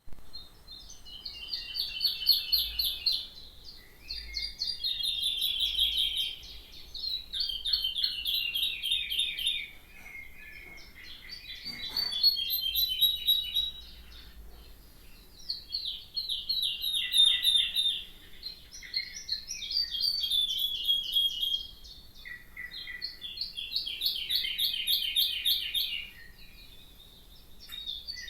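A songbird singing: about seven long phrases of rapid, chattering high notes, each two to three seconds long, with short pauses between them.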